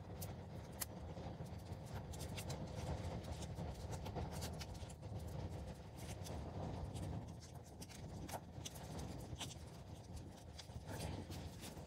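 Sharp alarm clock burning in open flames: a steady low rush of fire with scattered sharp crackles and pops.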